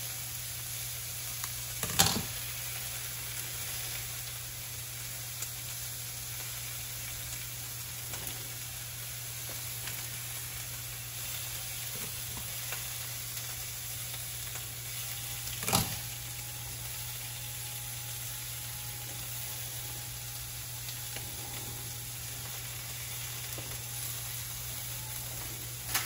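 Food sizzling and frying in a hot pan on a stovetop, a steady hiss, with two sharp knocks, one about two seconds in and another past the middle. A low steady hum runs underneath.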